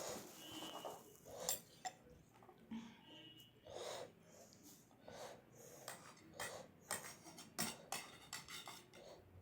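Faint eating sounds: irregular chewing and mouth smacks, with breaths in between.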